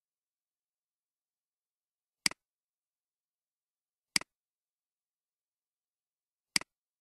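Three sharp computer mouse clicks, each a quick press and release, about two seconds apart, as lines of text are selected one after another.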